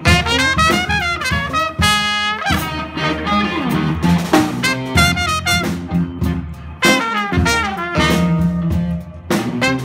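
Small jazz combo playing live: trumpet and saxophone play the melody together over electric guitar, bass and drums.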